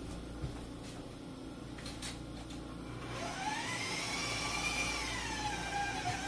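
Electric stand mixer's motor starting about three seconds in, its whine rising in pitch as it speeds up, then dropping to a lower steady pitch near the end as it is turned down. It is beating cream cheese, butter and vanilla. A few faint knocks come before it.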